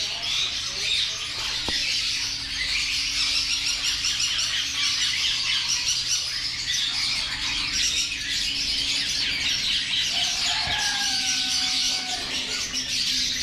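A roomful of caged small birds chattering and squawking continuously, a dense overlapping din of calls, with one longer whistled call about eleven seconds in. A faint steady low hum runs underneath.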